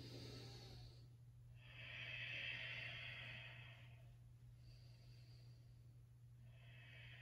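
A person's slow, deep breaths, faint and airy. The loudest lasts about two seconds, starting a couple of seconds in, and shorter ones come near the start, in the middle and near the end. A faint steady low hum runs underneath.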